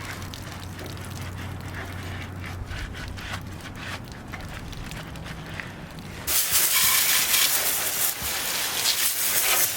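Spray cleaning with a pressure washer: a low hum and a few clicks while the spray is off, then a loud, steady hiss of spray starting about six seconds in.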